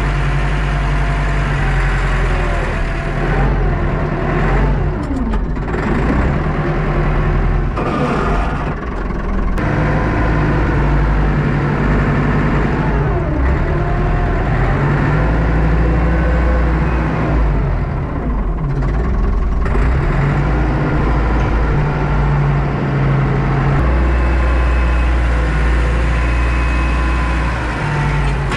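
Tractor engine running, its speed rising and falling several times as it works.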